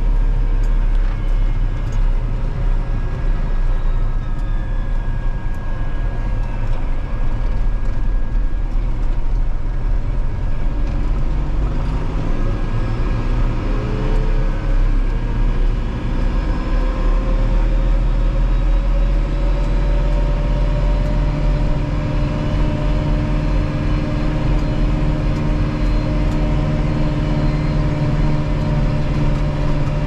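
Valtra N91 tractor's diesel engine running steadily under way, heard from inside the cab. About halfway through the engine sound dips briefly, then its pitch climbs slowly as it picks up speed again.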